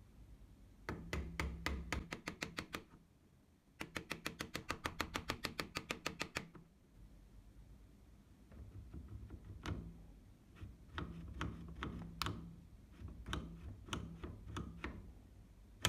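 Sharp metal clicks and knocks from a rusty Astra 4000 Falcon pistol being worked apart in a vise, with steel tools and parts striking each other. A first run of clicks gives way to quick, even taps at about nine a second, then to scattered single clicks.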